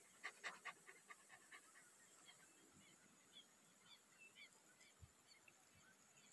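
Faint animal and bird calls in a quiet field: a quick run of calls in the first second or so that dies away, then scattered short, high chirps of birds.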